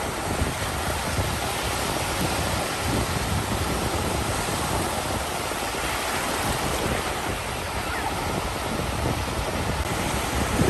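Ocean surf breaking and washing on a beach as a steady rush, with wind buffeting the microphone as a low rumble.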